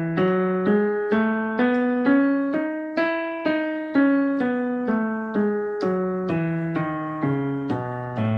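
E major scale played one note at a time with the left hand on a digital keyboard's piano sound, about two notes a second. It climbs step by step to the top note about three seconds in, then steps back down.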